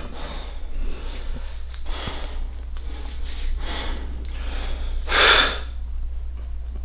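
A man's sharp breaths in and out while flexing into a bodybuilding side chest pose, the loudest a forceful exhale about five seconds in, over a steady low hum.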